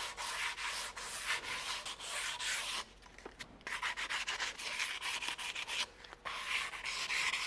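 120-grit sandpaper rubbed in quick rasping strokes along the edge of a fiberglass-faced recurve bow limb, stopping briefly about three seconds in and again about six seconds in.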